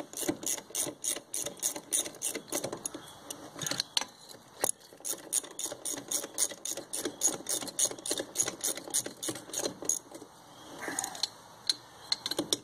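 Socket ratchet clicking quickly and evenly, about five clicks a second, as the rim nuts are tightened down a little at a time, with a short break near the end.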